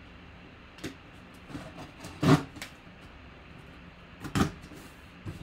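A few short scratchy slices and knocks as a folding knife cuts the sealing stickers on a cardboard box and the box is turned in the hands, the loudest about two seconds in.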